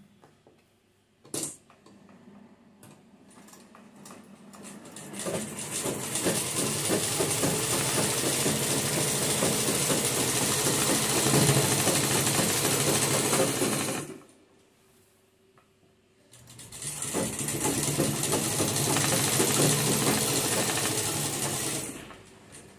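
Sewing machine stitching through fabric in two runs of fast, even ticking, the first about nine seconds long and the second about five, with a pause of about two seconds between them. A single sharp click comes about a second in, before the machine starts.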